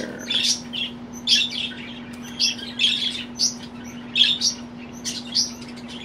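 Budgerigar chirping in short high bursts, two or three a second and irregularly spaced, while held in the hand.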